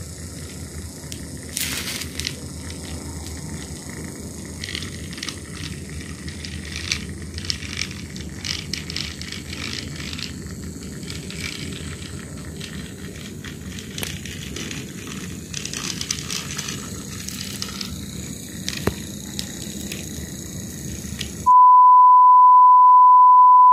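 Battery-powered Railking toy locomotive running on plastic track, its small motor humming under irregular clicks and rattles from the wheels and track, running alone without its carriages on nearly drained batteries. About 21 seconds in, this cuts off and a loud, steady 1 kHz test-tone beep starts abruptly.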